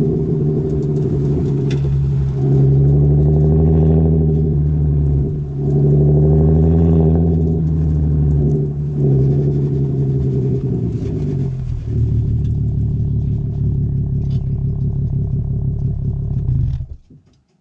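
VW Golf 4 R32's 3.2-litre VR6 heard at the tailpipe of its F-Town Aggressor 2.5-inch cat-back exhaust, its note swelling and easing with the throttle and dipping briefly a few times. It runs steadier and a little quieter in the last few seconds, then cuts off near the end.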